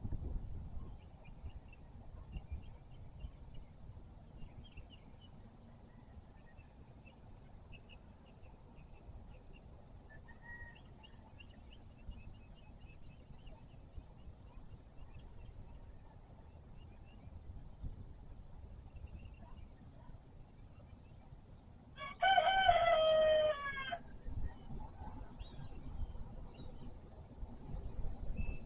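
A rooster crows once, a loud call about two seconds long near the end, over a steady high insect drone and faint scattered chirps.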